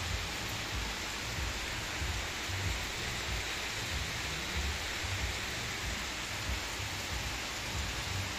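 Heavy rain falling, a steady even hiss, with irregular low rumbles underneath.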